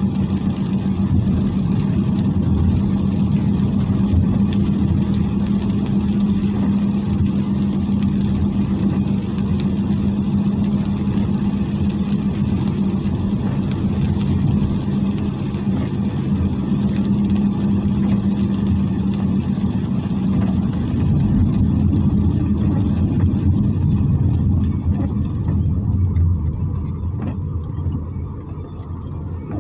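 Car driving on a wet road, heard from inside the cabin: steady engine and road noise. A low, even hum runs under it and fades away about two-thirds of the way through. The noise eases briefly near the end.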